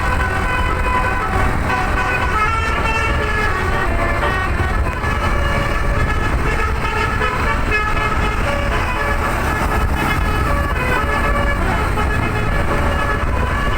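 A tour bus's telolet musical air horn playing a tune of quickly changing notes without a break, over the low rumble of the moving bus and road.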